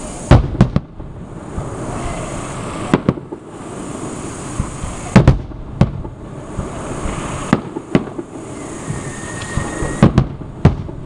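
Aerial firework shells bursting: about a dozen sharp bangs at irregular intervals, several coming in quick pairs or triples, over a steady background noise.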